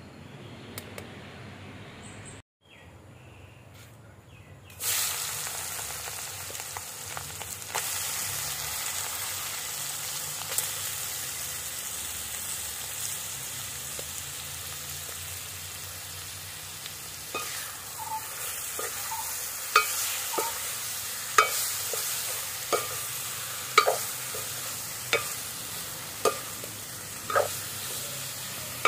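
Marinated meat pieces frying in hot oil in an aluminium pot over a wood fire: a sudden loud sizzle about five seconds in that settles into a steady sizzle. In the second half a ladle stirs the meat, knocking and scraping against the pot about once a second.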